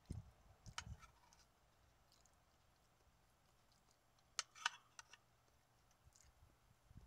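Quiet eating sounds: a few sharp clicks of a metal spoon against a plastic meal tray, a pair about four and a half seconds in, with soft low thumps and clicks in the first second.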